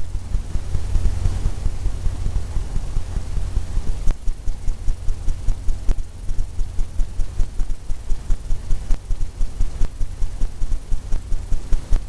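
Fan brush tapping against a stretched canvas, a quick run of dull thumps about three to four a second as palm fronds are dabbed on.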